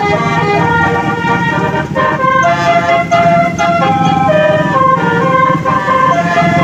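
Basuri telolet horn, a multi-tone musical vehicle horn, playing a tune: several notes sounding together and stepping to new pitches every fraction of a second, over a steady low engine rumble.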